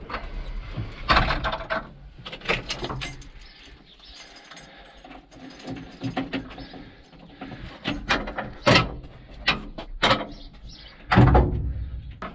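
Irregular sharp knocks, clicks and rattles from the controls and metal fittings of a tractor cab being handled, a dozen or so separate strokes spread over several seconds.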